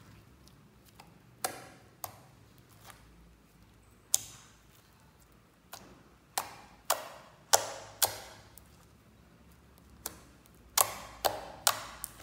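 White slime being pressed and kneaded by fingers, popping and clicking sharply as trapped air bursts out, about a dozen pops at irregular intervals, coming faster in the second half.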